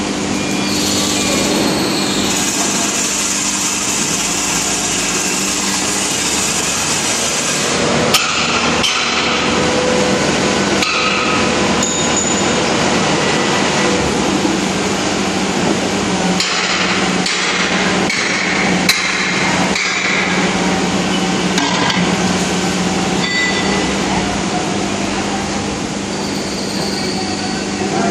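Foundry workshop noise: a steady machinery hum under a dense clatter, with scattered sharp metallic knocks, several in the middle of the stretch.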